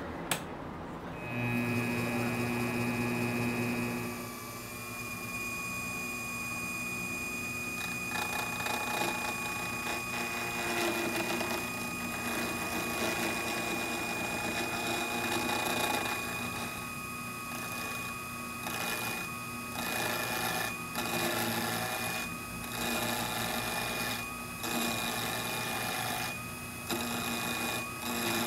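Wood lathe starting up about a second in and running with a steady whine, while a carbide turning tool cuts a spinning sugar maple pen blank. The cutting noise comes and goes in short strokes in the second half.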